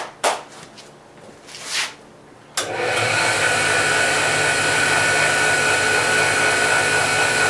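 A few brief handling noises, then about two and a half seconds in a surface grinder starts running with a steady whirring noise and a constant high whine. The owner feels a vibration in the machine and suspects its old drive belt.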